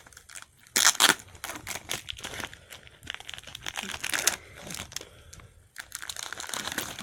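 Tablet packaging crinkling and crackling with some tearing as it is handled and pulled away, in irregular bursts that are loudest about a second in.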